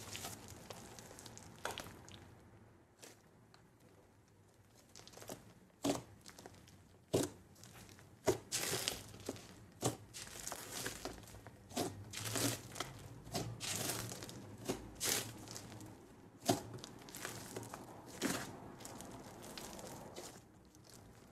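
Hands kneading and pressing white speckled slime, giving irregular sharp crackles and pops, sparse at first and coming thick for several seconds in the middle.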